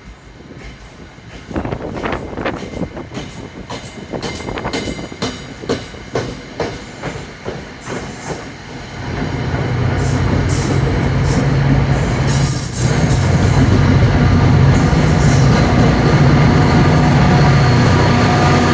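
Departing commuter train: its passenger cars click rhythmically over the rail joints. About nine seconds in, the diesel locomotive pushing at the rear, a GP40-2B, passes with its engine running loud under load, and the wheels give off some high squeals.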